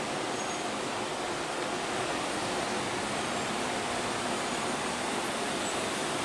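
Steady, even rushing hiss of room noise with no distinct events.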